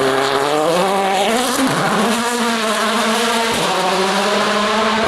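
Rally car engine pulling hard at high revs, its pitch climbing and then holding, with two brief breaks about one and a half and three and a half seconds in, like quick gearshifts.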